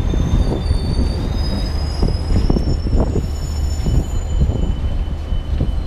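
Train wheels squealing on the rails at slow speed: several thin, high squeals that shift in pitch, over a steady low rumble.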